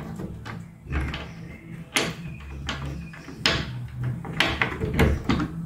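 Pocket door's slotted steel hanger bracket clicking and knocking against the carrier's threaded hanging bolt and nuts as the door is hooked onto its track hanger. There are several irregular sharp knocks, most of them in the second half.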